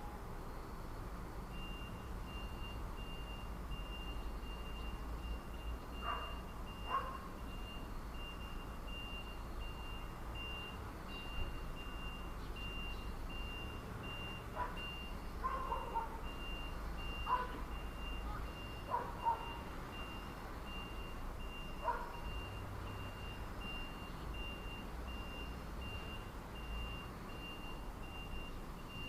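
A vehicle's reversing alarm beeps steadily in a high, even rhythm of roughly one beep a second. Over it a dog barks about ten times in short, scattered barks through the middle. Low traffic rumble runs underneath.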